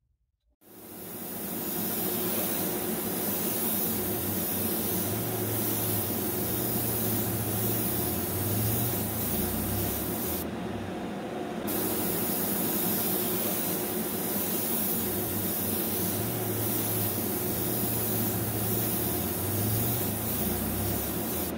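Hobby paint spray booth exhaust fan running: a steady rush of air over a low motor hum. It starts about half a second in, and the hiss dulls briefly about halfway through.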